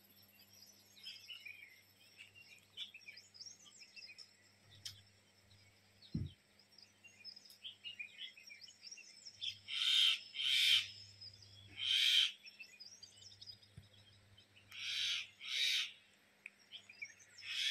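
Many birds chirping and twittering in a morning chorus. Several louder short calls break in from the middle on, some in pairs.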